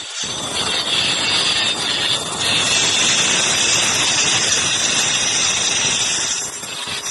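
Handheld electric marble cutter running with a Super Steel cutting blade, grinding through a stone slab. It makes a loud, steady grinding whine that sets in sharply just after the start and eases slightly near the end.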